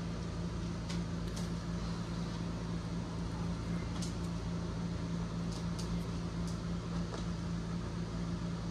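Room tone: a steady low hum, with a few faint light clicks scattered through it.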